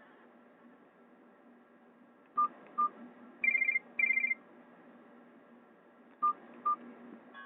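Nokia 216 phone's loudspeaker playing a short electronic Nokia E75 ringtone: two short beeps, then two brief higher warbling trills like a telephone ring. The pair of beeps comes again near the end.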